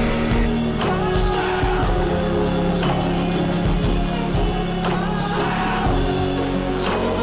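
A pop-rock song with singing and a steady drum beat.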